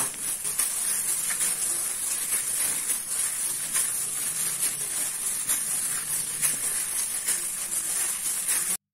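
Plastic-gloved hand mixing raw minced chicken and chopped cabbage filling in a bowl: wet squishing and crinkling of the glove over a steady hiss, cutting off abruptly near the end.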